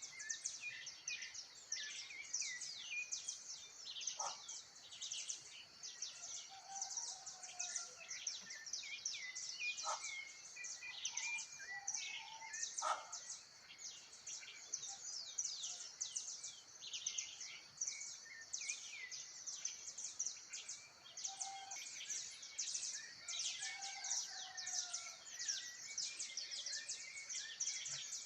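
Many birds chirping at once in a dense, continuous chorus of quick high chirps over a steady high-pitched whine, with a few lower calls now and then and three sharp clicks in the first half.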